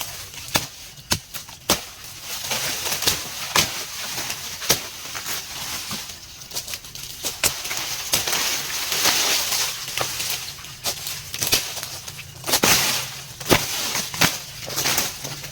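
Rustling and crackling of branches and leaves being handled, with many irregular sharp snaps and knocks. The rustling swells for several seconds in the first half and again briefly near the end.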